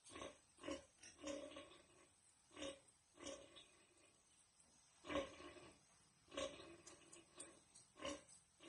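Pigs grunting: short, low grunts at irregular intervals, roughly one a second, the loudest about five seconds in.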